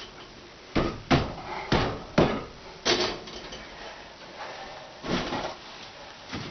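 A run of sharp knocks and clunks from hard parts being handled and bumped while a dishwasher is fitted under the counter: five in the first three seconds, then one more about five seconds in.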